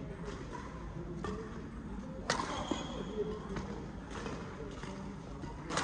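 Badminton racket strikes on a shuttlecock during a rally: about five sharp hits, roughly a second apart, the loudest a little over two seconds in.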